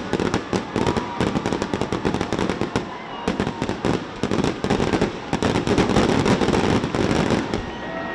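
Fireworks display: a dense, continuous barrage of bangs and crackling reports overlapping one another, heaviest a little past the middle.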